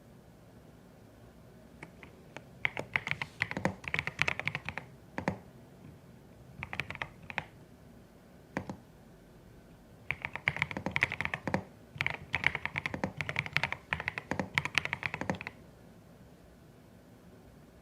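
Typing on a CIDOO ABM081 Stellar mechanical keyboard with Carda switches: quick runs of keystrokes with short pauses between them, then stopping about three seconds before the end.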